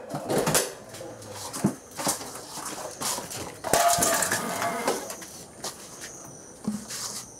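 A front door's latch and door being worked open, with clicks, clatter and handling noise. From about two-thirds of the way in, a steady high-pitched insect chorus comes in.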